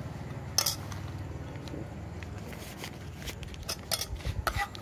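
Steel spoon clinking and scraping against an aluminium mixing bowl as aloo kabli is stirred and scooped, with one sharp clink about half a second in and a run of quicker clinks near the end, over a low steady hum.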